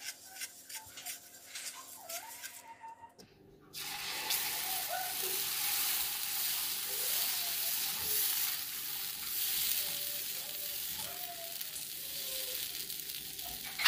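Moong dal pesarattu batter sizzling on a hot flat dosa pan as a ladle spreads it in circles. The sizzle starts suddenly a few seconds in, after a quieter stretch of light scrapes as the pan is wiped.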